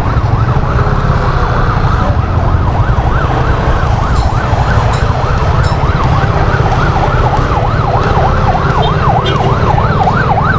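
A siren yelping, its pitch sweeping rapidly up and down about three times a second and growing louder toward the end, over the low rumble of idling motorcycle engines.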